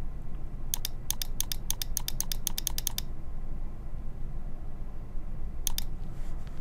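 Computer mouse button clicking: a quick run of about nine clicks, each a click-and-release, then one more click near the end.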